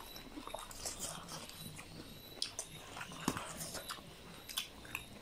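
People chewing food close to the microphone, with irregular wet mouth clicks and smacks.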